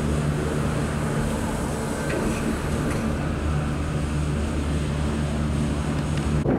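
Gondola lift station machinery running with a steady low hum of several held tones as a cabin rolls out of the station. The hum breaks off suddenly near the end.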